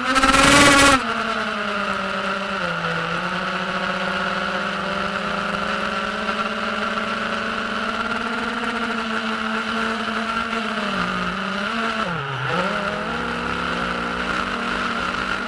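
FPV quadcopter's brushless motors and propellers whining steadily in flight, with a loud surge of throttle in the first second. The pitch dips and recovers twice in the last few seconds as the throttle is eased and reapplied.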